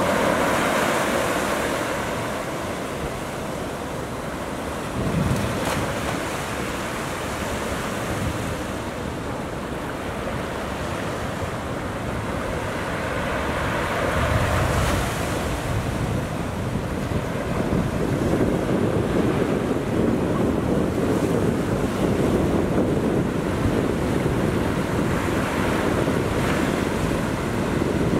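Ocean waves breaking and washing in, a steady rush of white water that swells several times and is loudest in the second half, with wind rumbling on the microphone.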